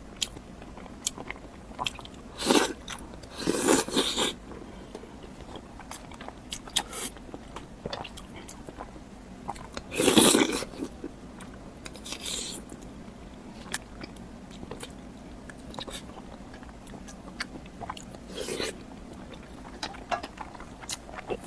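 A person eating close to the microphone: scattered chewing and biting sounds, with a few louder bursts, the loudest about ten seconds in.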